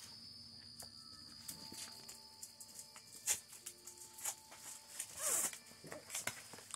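Two pitbull puppies play-wrestling on a blanket over cardboard: soft scuffling and rustling of fabric and cardboard with scattered sharp scratches and clicks, and a brief puppy whine about five seconds in. A faint steady high whine sits in the background.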